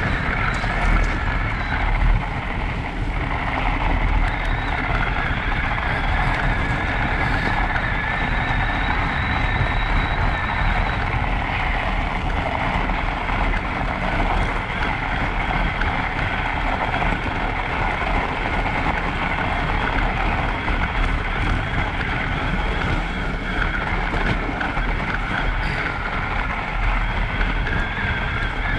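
Electric mountain bike riding over a packed snow trail: a steady rush of tyres on snow and drivetrain noise with a faint high whine from the motor.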